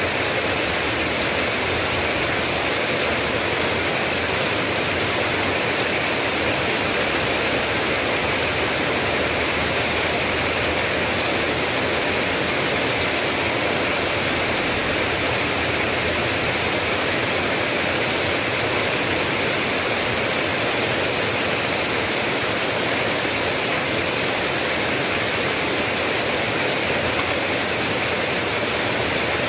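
Steady, unbroken rain noise, an even hiss with no distinct drops, thunder or other events.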